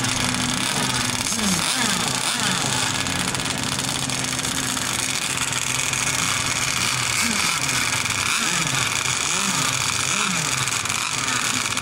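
Small engines of radio-controlled model racing boats running on their stands, with a steady drone and brief rises and falls in pitch now and then.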